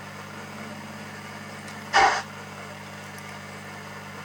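Steam locomotive sound from a Zimo sound decoder in a Hornby Mallard (LNER A4) model, played through the model's small speaker at very slow speed: a steady low hum with a single chuff about two seconds in.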